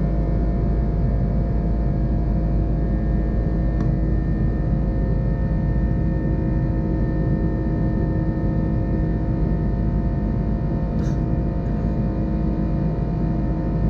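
Airbus A330-200 jet engines heard inside the passenger cabin in flight: a steady low drone with a layer of steady humming tones.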